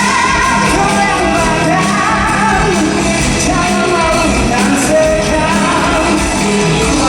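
Live band playing an upbeat pop-rock song with a man singing lead over it.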